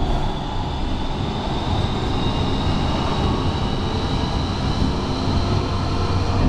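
Portland MAX light rail car running, heard from inside: a steady rumble and rattle on the rails with a faint whine that rises slowly in pitch as it pulls away from the station.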